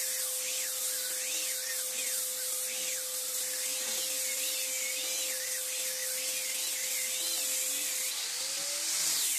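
Handheld electric disc sander running against teak planks: a steady motor hum under a gritty sanding hiss, with a whine that rises and falls about once a second as the disc is pushed back and forth across the wood.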